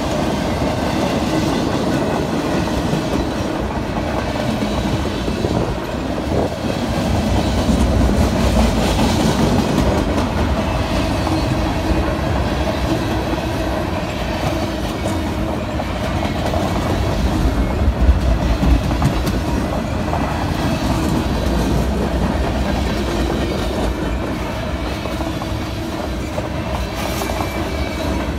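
Freight train of loaded flatcars rolling past: a steady rumble and rattle of steel wheels on the rails, with clickety-clack over the rail joints and a sharper clank about two-thirds of the way through.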